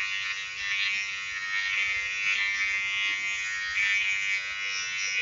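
Wahl GroomsMan Pro cordless trimmer running with a steady high buzz while its blades cut through hair.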